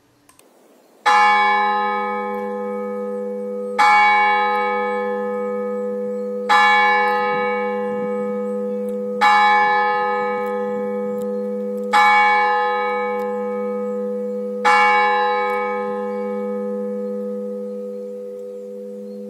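Church tower clock bell striking six o'clock: six strokes about 2.7 seconds apart, each ringing on and fading while a low hum carries from one stroke to the next.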